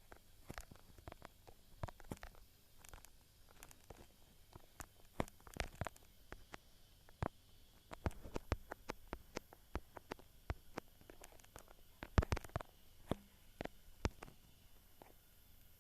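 A run of irregular sharp clicks and light knocks, several a second and uneven in loudness, over a faint hiss.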